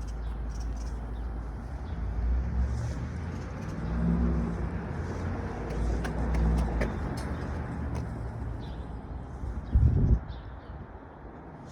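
Motor vehicles passing on the street: a steady low engine rumble that swells and fades a couple of times. Near the end there is a brief loud low thump.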